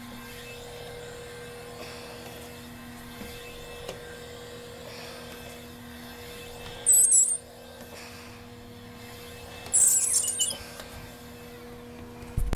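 Kärcher window squeegee vacuum's small electric motor running with a steady low hum. Two short, loud, high squeaks cut in, about seven and ten seconds in.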